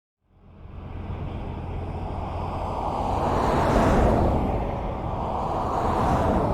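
Highway traffic: a steady rush of tyre and engine noise that fades in from silence, swells as a vehicle passes about four seconds in, and rises again with another near the end.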